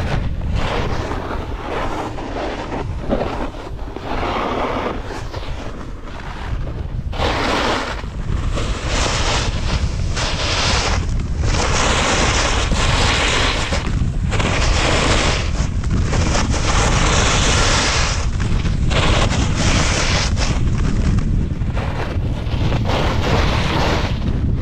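Wind buffeting an action camera's microphone while riding fast downhill, with a hiss from snowboard edges scraping across packed snow that swells and fades every second or two through the turns.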